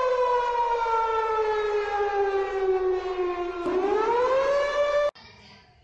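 Siren sound effect: one loud, rich tone that slides slowly down in pitch for most of its length, swoops back up near the end, and cuts off suddenly about five seconds in.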